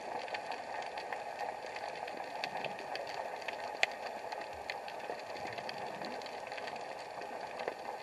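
Underwater ambience picked up by an action camera in its waterproof housing on the seabed: a steady muffled hiss dotted with many faint clicks and crackles, with one sharper click about four seconds in.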